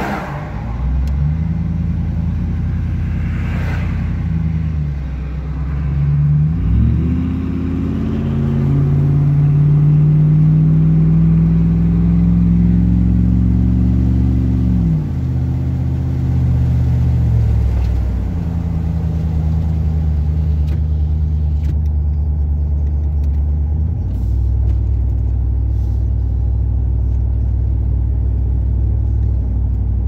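Truck engine breathing through an 8-inch Cherry Bomb glasspack muffler, heard from inside the cab while driving. The engine note climbs about seven seconds in, holds a steady drone, then drops back around fifteen seconds and steps lower again later.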